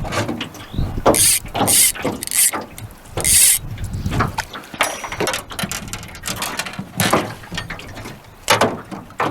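Handling noise in a small fishing boat as a caught trout is landed and unhooked: irregular knocks, clicks and rattles, with a few short hissy, splashy bursts in the first few seconds.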